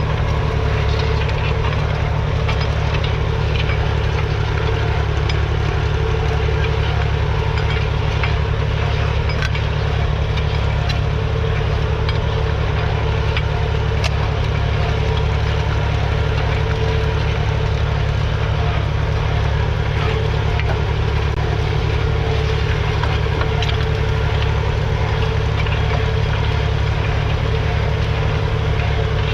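David Brown 780 tractor's 2.7-litre three-cylinder diesel engine running steadily, an even low drone.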